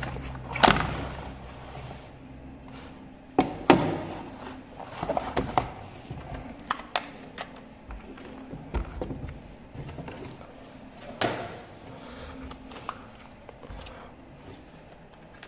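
Irregular knocks and clicks, the two loudest about half a second and about four seconds in.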